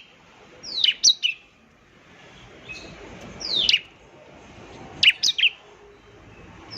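Bar-winged prinia (ciblek) singing: three short bursts of sharp, quickly falling chirps, about a second apart, over a faint hiss.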